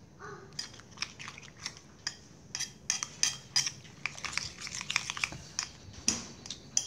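Metal fork stirring and mashing a wet, chunky paste in a ceramic bowl: irregular clicks of metal against the bowl, about two or three a second, with wet squelching.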